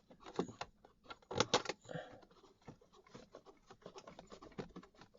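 Handling of a car's instrument cluster and its screws during refitting into the dashboard: irregular small clicks, taps and scraping, with a few sharper clicks about half a second and a second and a half in.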